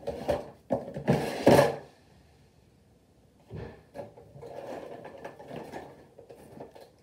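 Clear plastic storage drawers being slid and rummaged through, with clattering and scraping; the loudest clatter comes in the first two seconds, then after a short pause a longer stretch of softer rummaging.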